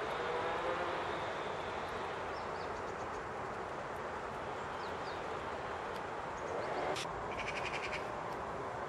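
Distant two-stroke chainsaw running, its engine pitch wavering up and down as it cuts. About seven seconds in a bird gives a short, rapid rattling call.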